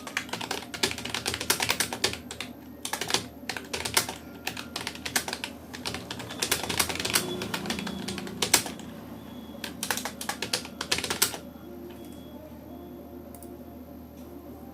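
Fast touch-typing on a Rapoo computer keyboard: a rapid, uneven run of key clicks with short pauses, stopping near the end.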